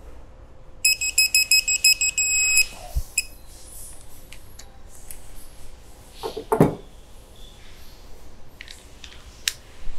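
Digital torque wrench beeping on a crankcase bolt: a quick run of high beeps that runs together into one steady tone, the signal that the set torque has been reached. About six and a half seconds in, a short clatter as the wrench is laid down on the bench.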